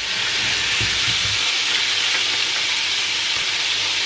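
Verdinhos (blue whiting) frying whole in hot oil in a nonstick frying pan: a steady sizzle.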